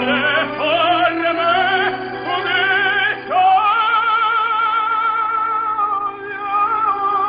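Operatic solo voice singing: a few short rising phrases, then a long note held with a wide vibrato from about three seconds in.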